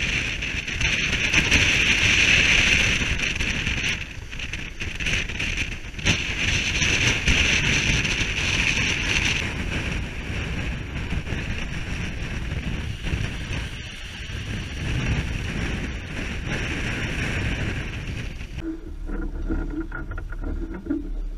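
Strong wind and rough seas rushing and breaking around a sailboat's hull, with wind buffeting the microphone in gusts. About nineteen seconds in, this cuts off suddenly to a much quieter stretch.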